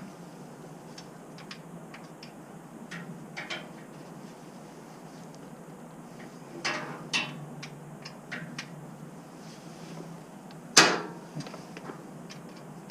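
Scattered clicks and knocks of a wrench or socket on a steel oil drain plug in an aluminum oil pan. About eleven seconds in comes one sharp, loud crack with a brief ring: the seized plug breaking loose.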